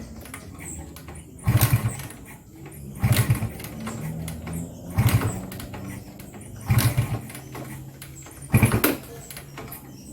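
Kawasaki Ninja RR two-stroke motorcycle engine being cranked to start after a carburettor cleaning, in five short bursts about every one and a half to two seconds, with a low steady hum between them.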